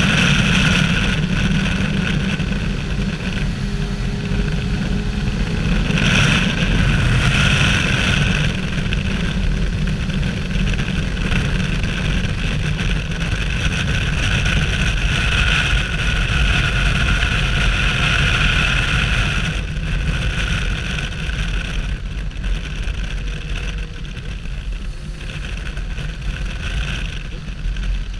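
Kawasaki Versys 1000's inline-four engine running at highway speed, heard from onboard under a steady, heavy rush of wind on the microphone. Its higher engine note comes and goes and fades out about two-thirds of the way through.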